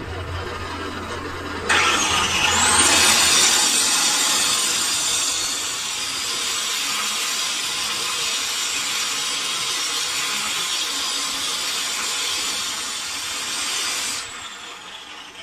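Power tool grinding or polishing a metal pump shaft: a loud, even abrasive hiss that starts abruptly about two seconds in and cuts off near the end, leaving a high motor whine sliding down as the tool spins down.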